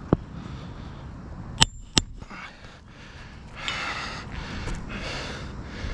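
Three sharp knocks of a roofing nail being driven into an asphalt shingle, then close, heavy breathing in the second half.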